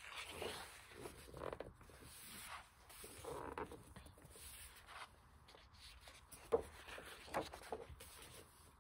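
Pages of an oversized hardcover art book being turned and pressed flat by hand: paper rustling and sliding in a run of soft sweeps, with a sharp tap about six and a half seconds in.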